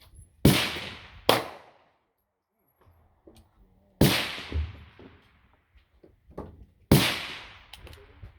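Four gunshots, each followed by an echoing decay. The first two come less than a second apart, then single shots follow about three seconds apart.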